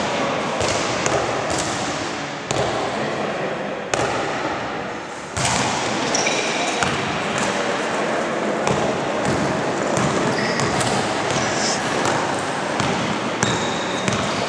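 A basketball bouncing on a gym's hard court in scattered knocks, with short high sneaker squeaks from about six seconds in and near the end, over a steady echoing wash of gym noise.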